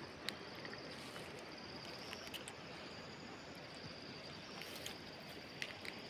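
Outdoor ambience: a steady soft hiss under an insect's high, evenly pulsing trill, with a few faint clicks.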